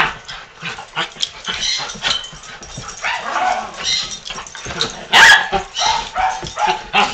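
A poodle and schnauzers at play, barking and yipping in short bursts, the loudest bark about five seconds in.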